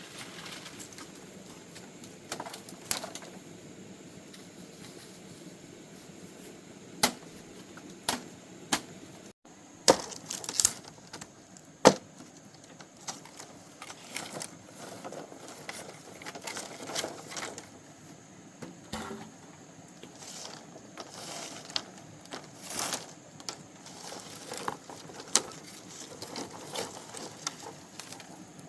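Bamboo being cut and split with a blade: irregular sharp knocks and cracks, the loudest strikes coming between about seven and twelve seconds in.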